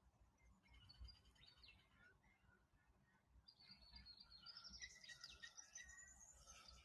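Faint early-morning birdsong: several birds chirping and whistling short high calls. The calls are sparse at first and grow much busier about halfway through.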